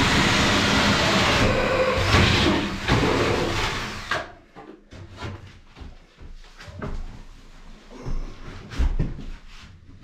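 Cordless drill with a hole saw cutting through plasterboard, running steadily and stopping about four seconds in. After that come scattered knocks and clicks of things being handled at the wall.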